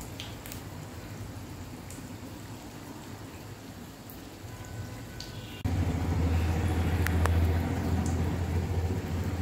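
Potato-stuffed bread rolls deep-frying in hot oil in a steel kadai, the oil sizzling steadily around them. A little over halfway through the sound jumps louder and a low hum comes in underneath.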